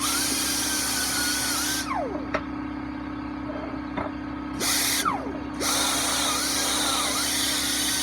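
Pneumatic wire-wheel grinder running under load against the vise's paint with a hissing whine, released about two seconds in and spinning down with a falling pitch, given a short burst midway, then run again to the end. A steady hum from the air compressor runs underneath.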